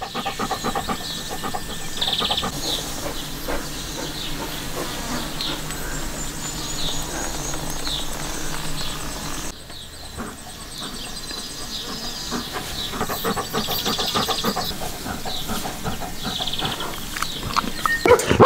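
Rural outdoor ambience: birds chirping on and off over a steady low background rumble.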